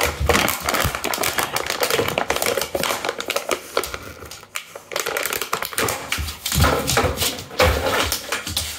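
Springer spaniel chewing and shaking an empty plastic bottle, the plastic crackling in rapid clicks with a short lull about halfway through.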